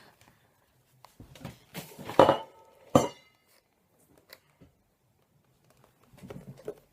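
A container of water being knocked over on a hard surface, spilling: a few clattering knocks and clinks between about one and three seconds in, the last a sharp clink that rings briefly.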